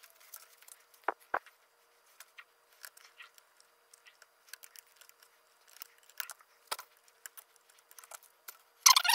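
Small metal clicks and scrapes of a tool seating a wrist-pin C-clip in its groove in a Sea-Doo 951 piston's pin bore, with two sharper clicks a little over a second in. Near the end comes a louder burst of rustling handling noise.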